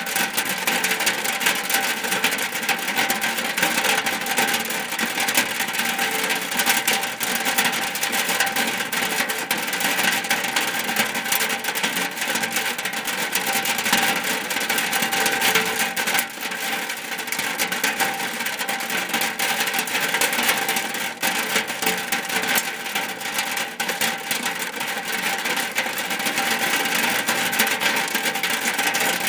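Rain falling on a shack roof: a steady, dense patter of countless drops.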